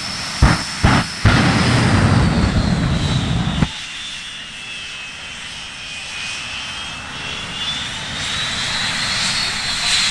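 AfterShock jet truck's jet engine: two sharp flame bangs in the first second, then a loud blast of exhaust that cuts off suddenly after about two and a half seconds. A high turbine whine carries on after it, dipping in pitch and rising again.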